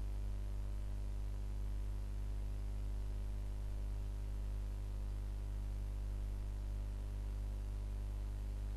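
Steady electrical hum, a low buzz with a stack of overtones, over a faint even hiss.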